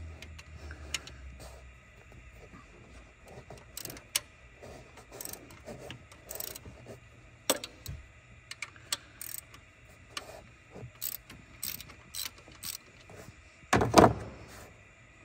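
Ratcheting box-end wrench clicking in short, irregular runs as a tight alternator mounting bolt is worked loose. A louder knock comes near the end.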